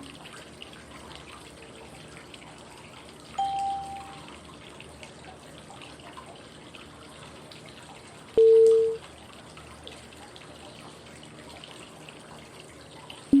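Steady flowing-water white noise with two short electronic cue tones five seconds apart: a higher one about three and a half seconds in, and a louder, lower one about eight and a half seconds in. The tones are breathing prompts marking each five-second phase of 5-5-5 breathing (inhale, hold, exhale).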